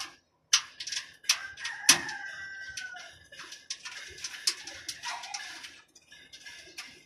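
A rooster crowing, one drawn-out call of nearly two seconds starting about a second in, mixed with sharp clicks and knocks from hands handling a metal PC case.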